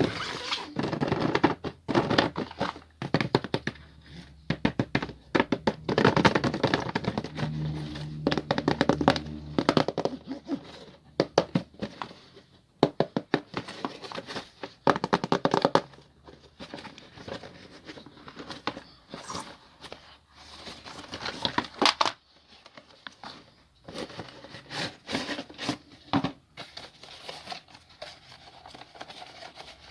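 Toy packaging being opened and handled: plastic and cardboard crinkling and tearing, with irregular clicks and knocks.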